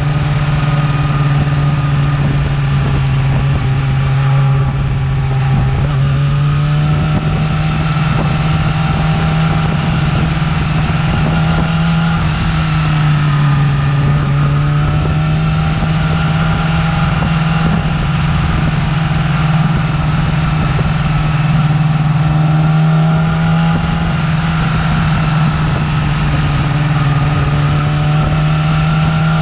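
Yamaha R6 inline-four engine with its stock exhaust running steadily at moderate revs, its pitch rising and falling slightly every few seconds.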